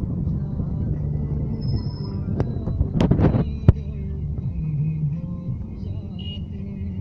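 Inside a moving Chevrolet car: steady engine and road rumble with music playing. A few sharp clicks come between about two and a half and four seconds in, the last one the loudest.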